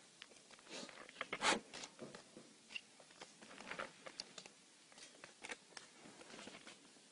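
A black bear scrambling down a tree trunk, its claws scraping and clicking on the bark in irregular scratches. The loudest scrape comes about a second and a half in.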